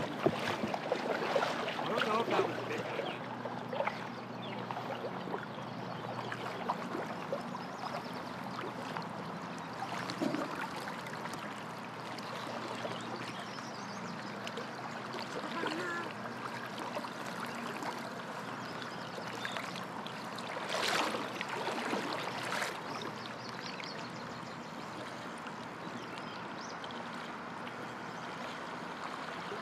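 Steady rush of river current flowing and lapping around a drift boat. A few knocks sound in the first few seconds, and there is a brief louder swell about twenty seconds in.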